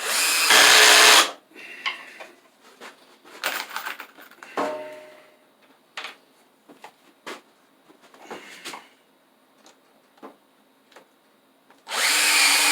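A power drill runs in two short bursts of about a second each, one at the start and one near the end, driving screws into a wooden cabinet frame. Between the bursts come light knocks and clicks of wood pieces being handled.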